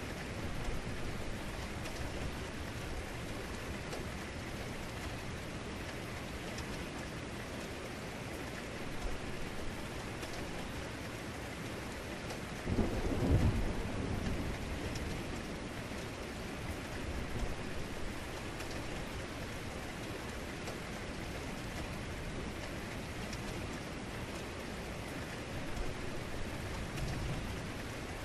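Heavy rain falling steadily, with one sudden deep thunder strike about halfway through that rumbles away over a second or two, and a few fainter swells of rumble around it.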